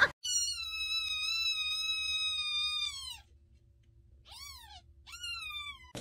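Newborn kitten mewing: one long, high cry of about three seconds that drops in pitch at its end, then two short cries.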